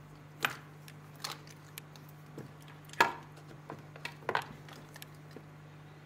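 Wristwatches being handled: a scattering of sharp clicks and knocks from metal watch cases and strap buckles, the loudest about three seconds in and a quick double knock a second later.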